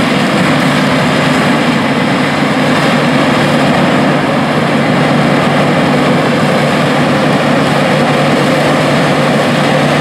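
Case IH 9240 Axial-Flow combine harvesting corn with a 16-row corn head, a Case IH tracked tractor pulling a grain cart alongside: heavy diesel engines and harvesting machinery running with a steady low hum.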